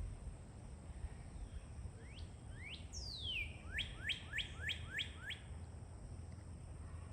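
A songbird singing one phrase about two seconds in: two short rising notes, a long falling slur, then five quick rising notes in a row, over a low steady background rumble.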